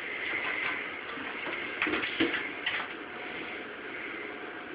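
A few faint clicks and scrapes as a computer case cover is handled and fitted back on, over a steady hiss.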